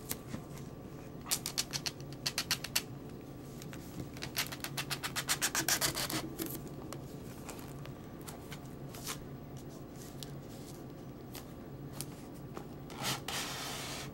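Cardboard packaging rubbing and scraping as hands slide the inner box out of its sleeve. The scraping comes in two runs of quick strokes, the first about a second in and the second from about four to six seconds in. A brief rustle follows near the end.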